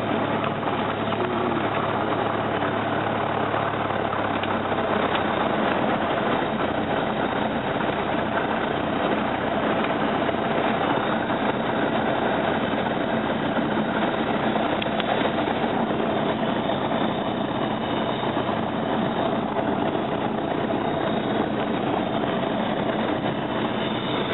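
Cessna 172 Skyhawk's piston engine and propeller running steadily at low taxi power, heard from inside the cockpit. A low hum underneath fades away about five seconds in.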